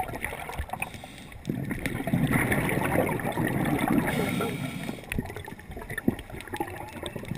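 Scuba diver's regulator heard underwater: an exhaled rush of bubbles lasting about three seconds, starting about a second and a half in, over a quieter steady underwater background noise.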